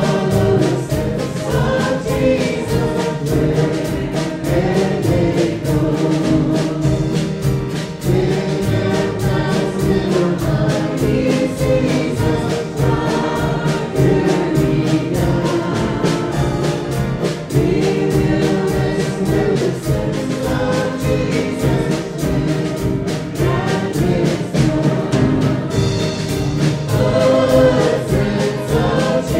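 Live country gospel song: several women's voices singing in harmony into microphones, over banjo and mandolin with a steady rhythm.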